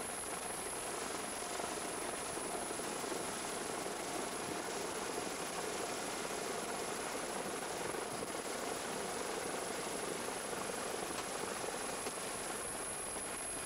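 Steady helicopter engine and rotor noise heard from on board the aircraft, an even rushing drone with a thin, high, steady whine over it.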